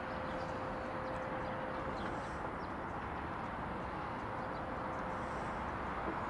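Steady outdoor background noise by the shore, with faint short high bird chirps now and then.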